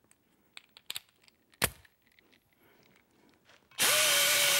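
Light clicks and knocks of the air die grinder being handled, with one sharp click near the middle. Near the end the pneumatic die grinder starts abruptly and runs with a steady whine over air hiss, its finer-fluted carbide bit working an aluminum intake manifold port.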